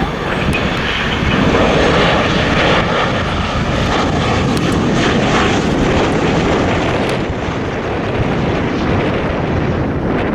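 Airliner's engines passing overhead with a loud, steady rush that swells about two seconds in and eases slightly later, mixed with wind buffeting the microphone.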